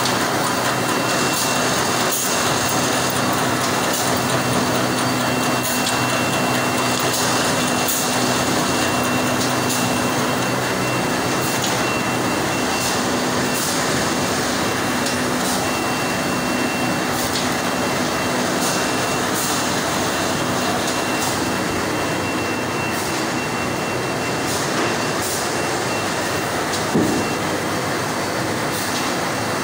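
5-ply automatic pasting machine for corrugated board running steadily: a continuous mechanical rush with a low hum and a faint high whine, light clicks scattered through it, and a single knock near the end.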